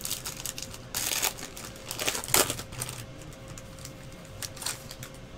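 Clear plastic crinkling and rustling as trading cards are handled, in a few short bursts, the loudest about a second in and again past two seconds, over a faint steady hum.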